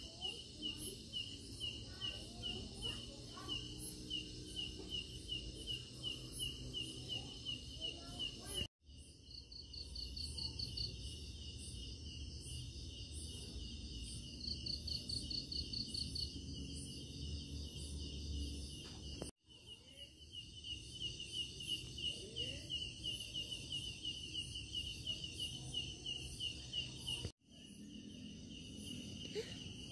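Night insect chorus of crickets: a steady, rapid pulsing chirp, with two short higher trills from another insect, over a low background rumble. The sound drops out briefly three times.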